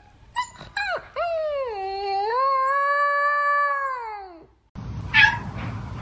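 A cat meowing: a few short meows, then one long drawn-out yowl that dips, holds and falls away at the end. After that comes a sudden change to a noisier background with a short high cry.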